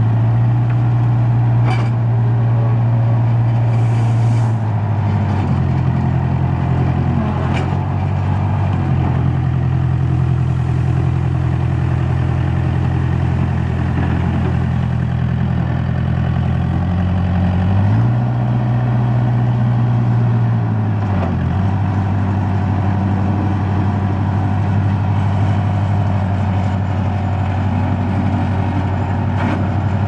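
Case 4-390 four-cylinder diesel engine of a 1994 Case 580 Super K backhoe running steadily. Its speed is held up for the first few seconds and raised again about two-thirds of the way through, each time dropping back to a lower steady run.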